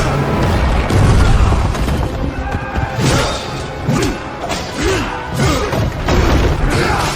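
Music mixed with crashing and booming impact sound effects, several sharp hits about a second apart in the second half, like a cartoon battle soundtrack.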